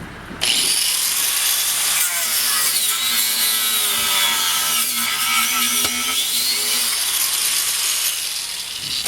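Craftsman angle grinder with a cut-off wheel cutting through a rubber tire, starting up suddenly about half a second in. Its whine sags and recovers in pitch as the wheel bogs in the rubber, easing off slightly near the end.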